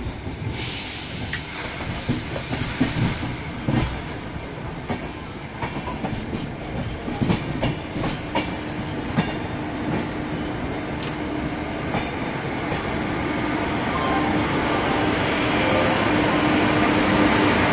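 Indian Railways express passenger coach rolling into a station platform, heard from its doorway: wheels clicking over rail joints and points. A steady low whine sets in about halfway, and the running noise grows louder near the end.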